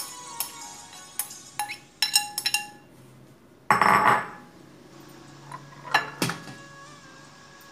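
Glass bowls clinking and knocking as grated potato is tipped and scraped from one glass bowl into another: a quick run of ringing clinks over the first few seconds, a louder clatter about four seconds in, then a few more clinks.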